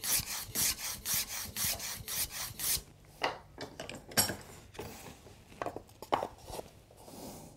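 Small hand plane taking quick, short strokes along the edge of a Spanish cedar strip clamped in a vise, about four strokes a second, dressing off the rough edge. The strokes stop about three seconds in, followed by a few light knocks and scrapes as the piece is handled.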